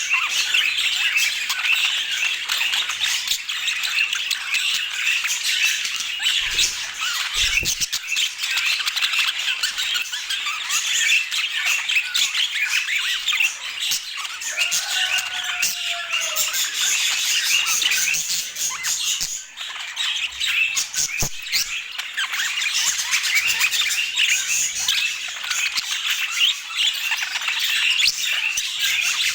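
Budgerigars chattering, chirping and squawking without pause, with a brief lull about two-thirds of the way through.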